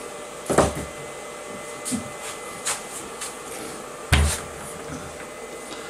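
Handling noise of small objects being moved about by hand: two knocks, about half a second and four seconds in, with a few light clicks between them.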